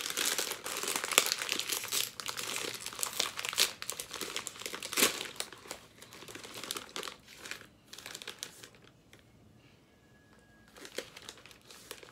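Plastic snack packet crinkling as it is handled and opened, dense rustling for about the first five seconds, then scattered crackles that die down to quiet for a couple of seconds, with a few more crackles near the end.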